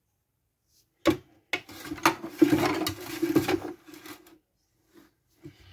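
A metal utensil scraping and rubbing against a towel and the plastic drum of a toy washing machine, starting with a sharp click about a second in and going on for about three seconds, with a couple of faint knocks near the end.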